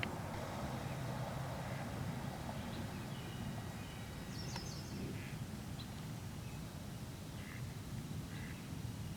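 Outdoor nature ambience: a steady low rumble with scattered short bird calls and a few sharp clicks.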